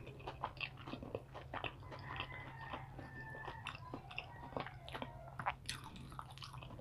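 Quiet, close chewing of a mouthful of kwek-kwek (batter-coated fried quail egg), with many small irregular mouth clicks and light crunches.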